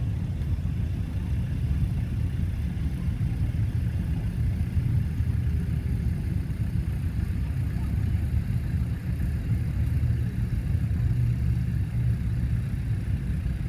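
Farm tractor engines idling, a steady low running sound that holds unchanged throughout.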